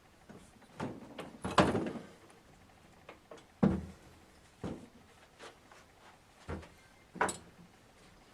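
Scattered metal knocks and clunks of luggage-rack brackets and bolts being handled and fitted, about nine short hits spread over several seconds with one longer scraping clunk near the start.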